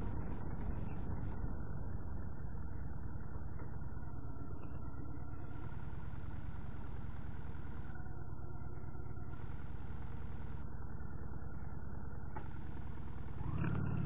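Steady low engine and road noise from the moving vehicle carrying the camera, at slow town-street speed. It grows louder near the end as the vehicle comes through a turn.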